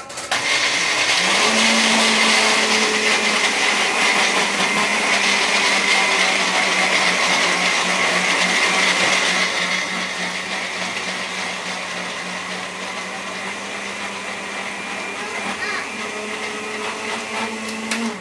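Countertop blender running steadily, grinding graham crackers into crumbs, with a steady motor hum under the grinding. It gets a little quieter after about ten seconds and then shuts off.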